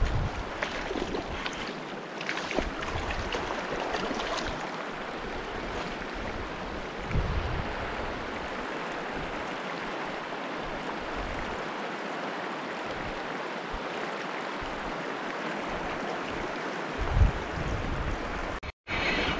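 Steady rush of a mountain river, with occasional gusts of wind buffeting the microphone, the strongest near the end. The sound cuts out for an instant just before the end.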